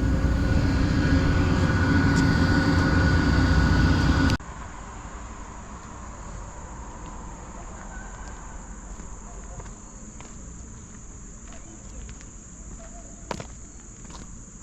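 An engine running loudly with a low rumble, which cuts off abruptly about four seconds in. After that, a steady high-pitched chorus of insects such as crickets, with scattered footsteps and clicks.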